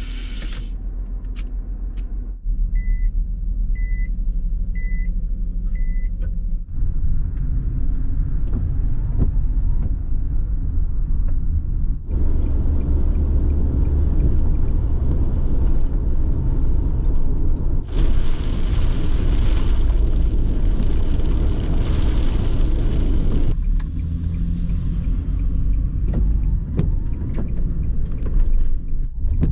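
Low rumble of a camper van on the move, in several cut segments. About three seconds in come four short high beeps, a second apart. Past the middle a louder rushing hiss lasts about five seconds.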